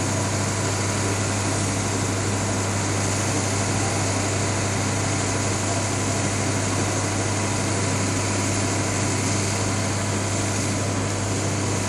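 Ambulance engine idling with a steady, unchanging low hum.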